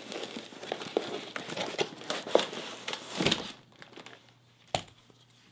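Crinkling and rustling of a duct-taped cardboard box and its packing as a stuffed toy bear is pulled out of it. The rustling dies down after about three and a half seconds, and one sharp click comes near the end.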